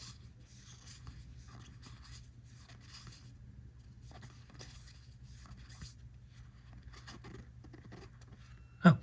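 Faint rustling and light flicks of paper trading cards being handled and flipped through by hand, over a low steady hum. A short exclaimed "oh" right at the end.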